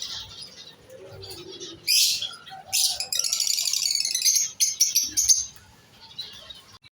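Small cage birds chirping: two sharp, shrill calls about two seconds in, then a rapid run of high chirps for about two and a half seconds, fading to faint chirps near the end.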